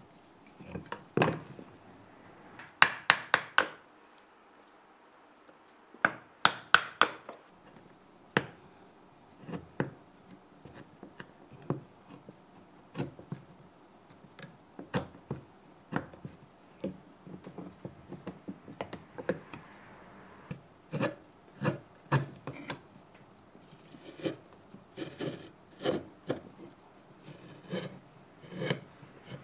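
Hand chisel paring and scraping end grain inside the throat of a wooden Japanese plane block (kanna dai): a run of short, irregular cutting strokes about once a second. Quick clusters of sharper clicks come around the first few seconds.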